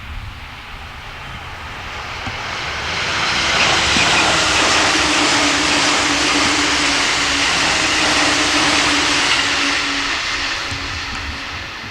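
A train passing at speed on electrified line. A rushing of wheels and air builds over about three seconds, holds for several seconds with a steady hum beneath it, then fades as the train moves away.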